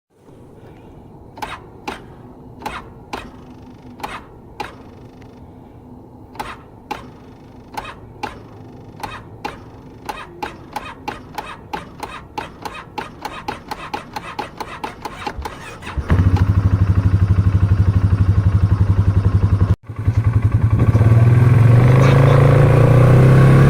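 Polaris Sportsman 570 ATV with its single-cylinder engine: a long run of sharp clicks, irregular at first and then quickening to about three or four a second, as it fails to start. About two-thirds of the way through the engine starts and runs steadily. It cuts out briefly, then runs again with its idle rising.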